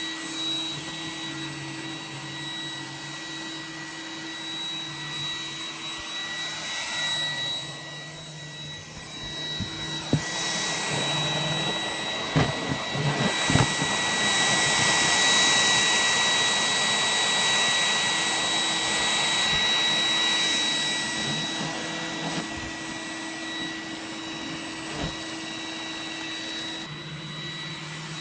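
iRobot Roomba 980 robot vacuum running, a steady fan hiss with a whine. About a third of the way in it grows louder for some ten seconds, with a few knocks, then settles back to its lower level.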